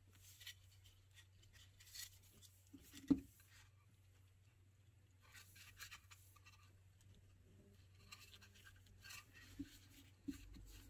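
Faint rustling and scraping of gloved hands handling a 3D-printed wood-PLA heart box and its lid, with one soft knock about three seconds in and a couple of light taps near the end.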